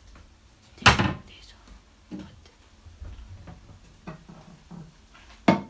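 Kitchen cupboard and stacked ceramic dinner plates being handled as plates are taken out: a loud knock about a second in, a few light clicks, then a sharp clack near the end.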